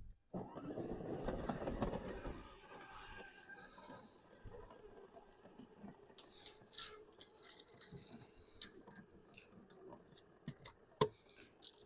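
Hand measuring and marking of a 2x10 board with a tape measure and pencil: a rustle of handling at first, then scattered light clicks and short scratchy strokes.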